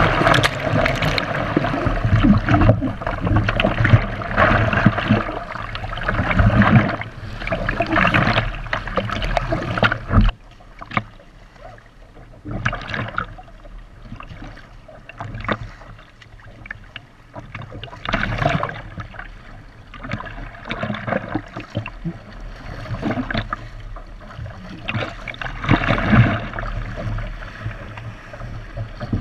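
Seawater splashing and sloshing against a surf ski's hull as it is paddled through chop, with paddle blades dipping and throwing spray. Loud and busy at first, it drops off suddenly about ten seconds in, then comes back as scattered splashes that swell again twice.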